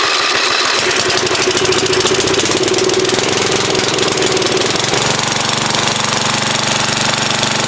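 Lawn tractor engine running roughly just after catching on starter fluid: not running well. About five seconds in its note changes, settling into a lower, steadier run.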